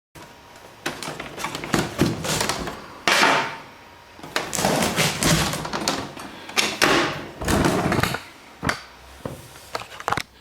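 Plastic casing panels of a Canon Pixma iP4500 printer being handled and pried at its clips: irregular clicks, knocks and scraping, some louder bursts among softer rubbing.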